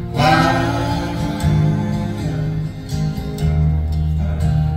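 Live acoustic folk music: a woman singing over two acoustic string instruments, one of them a guitar. A new sung phrase starts right at the beginning.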